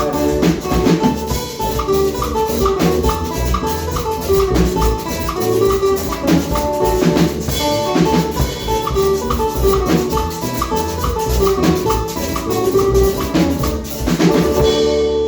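Instrumental Latin dance music without vocals: drums and maracas keeping a steady beat under a repeated melodic line.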